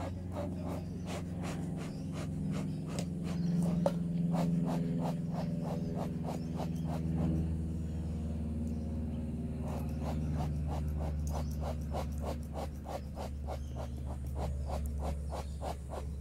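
Honeybees buzzing in a steady hum around an open hive, with a regular series of sharp clicks, about three a second, that stops for a couple of seconds in the middle and then starts again.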